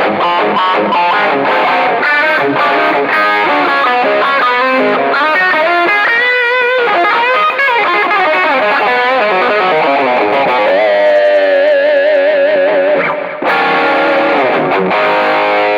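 Westcreek Helios electric guitar played through overdrive pedals: quick lead runs with wavering, bent notes, then a long held note with vibrato about eleven seconds in, followed by more playing.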